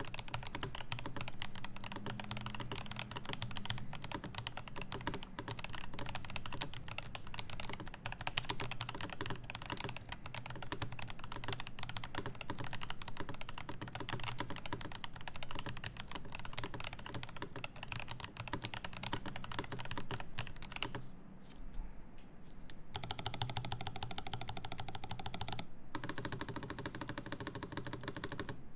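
Rapid, irregular clicking like typing on a computer keyboard, over a steady low hum. After a short lull about three-quarters of the way through, a buzzing, machine-like sound with a fast, even pulse takes over.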